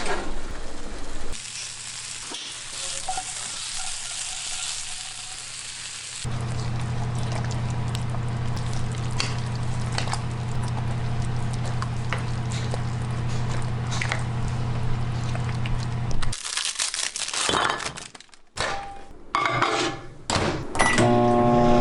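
Kitchen work sounds in several cuts: a soft hiss, then a steady low appliance hum with scattered clicks and taps for about ten seconds, followed by irregular clatter and handling, and a steady electronic tone starting near the end.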